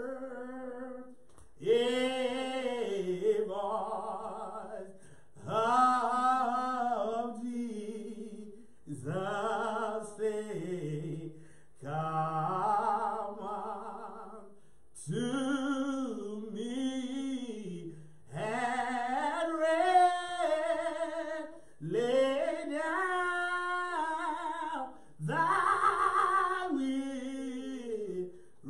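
A man singing a slow gospel hymn solo and unaccompanied, in about eight drawn-out phrases of a few seconds each with short breaths between them.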